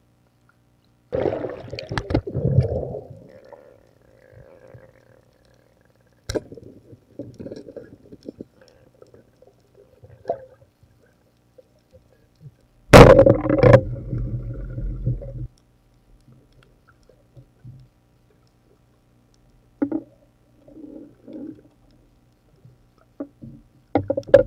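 Muffled underwater gurgling and bubbling around a free-diver's camera, in uneven bursts with a few sharp knocks. The loudest burst of gurgling comes about halfway through and lasts a couple of seconds.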